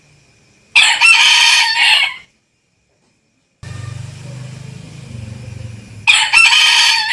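Rooster crowing twice, each crow about a second and a half long. A low steady hum runs under the second crow.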